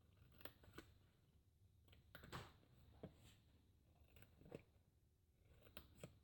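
Faint snips of scissors cutting cardstock: short, sharp clicks at irregular intervals, about eight or nine in all.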